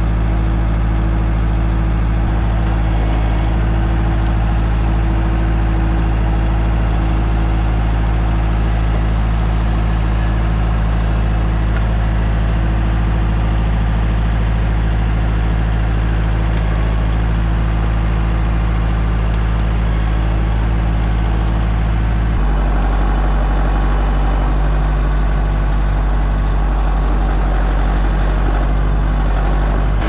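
Woodland Mills HM130Max portable band sawmill's gas engine running steadily while sawing a log. A little over twenty seconds in, the engine note changes abruptly and turns rougher.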